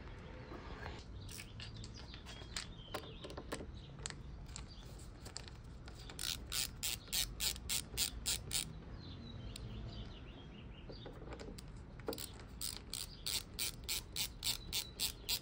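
Ratcheting screwdriver clicking in two runs of quick, even clicks, about five a second, one starting about six seconds in and another about twelve seconds in. It is backing out the screws of a scooter's front brake master cylinder reservoir cap.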